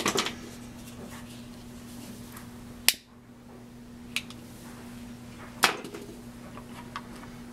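A handheld lighter struck to light a survival candle, with a candle and lighter handled on a wooden bench: a handful of sharp clicks and taps, two of them louder than the rest. A steady low hum runs underneath.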